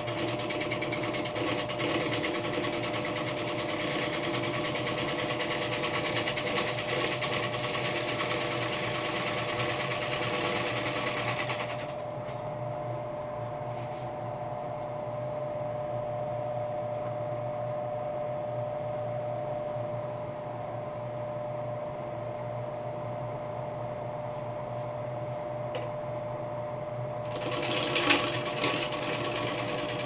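Wood lathe running with a steady motor hum while a bowl gouge cuts the outside of a spinning wet red alder bowl blank, the shavings hissing off the tool. The cutting noise stops about 12 seconds in, leaving the lathe's hum, and comes back near the end, briefly louder.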